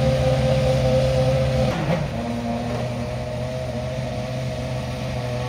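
Ferrari Formula 1 car's engine idling with a steady note. It dips briefly about two seconds in, then runs on a little quieter.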